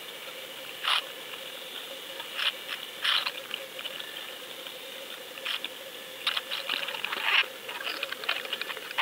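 Underwater audio from a GoFish camera towed behind a trolling boat: a steady faint hum over a hiss, with irregular clicks and crackles that come more often in the second half.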